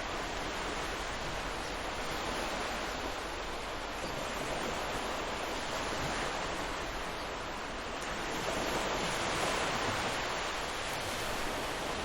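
Ocean surf washing onto a beach: a steady rush of waves that swells once about two-thirds of the way through, then eases.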